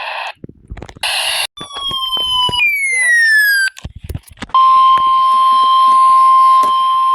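Weather radio alert signalling between two warnings: a couple of short electronic bursts and falling electronic tones, then about four and a half seconds in the steady single-pitch NOAA Weather Radio warning alarm tone, with static under it. This tone announces that a new warning, here a tornado warning, is about to be read.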